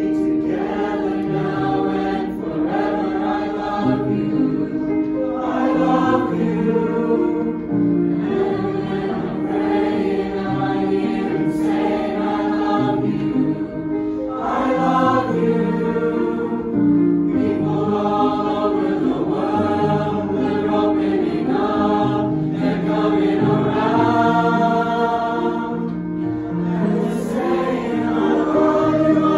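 Mixed choir of young voices singing in parts with grand piano accompaniment, in phrases with short breaths between them.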